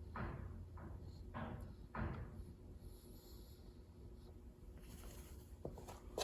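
Short handling sounds: four brief swishes in the first two seconds, then a few light clicks near the end.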